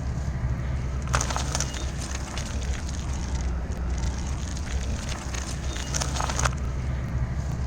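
A car tyre slowly rolling over and crushing something brittle: dense crackling and crunching from about a second in to near the end, over the low, steady rumble of the car.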